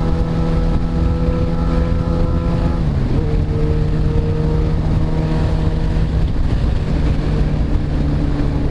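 Motorcycle engine running while riding, with wind buffeting the microphone. The engine note drops about three seconds in, then holds steady.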